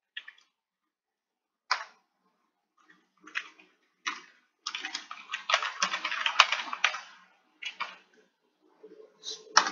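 Computer keyboard typing: short bursts of key clicks, with a longer fast run of keystrokes in the middle.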